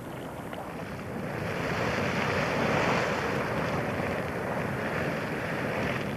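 Geyser erupting from its cone: a steady rushing hiss of steam and water that swells about a second in and then holds.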